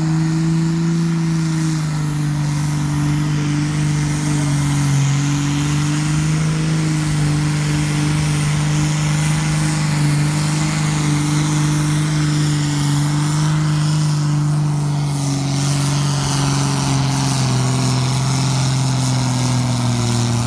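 A modified pulling tractor's turbocharged diesel engine runs flat out under full load, dragging a weight-transfer sled. The note is loud and steady, sagging gradually and dropping a little about three-quarters of the way through.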